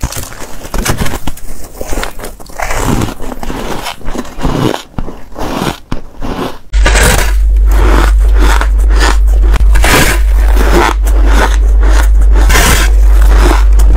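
Close-up crunching bites into soft ice and freezer frost, with crisp, irregular crunches and scrapes. About two-thirds of the way through the crunching turns louder and denser, over a steady low rumble.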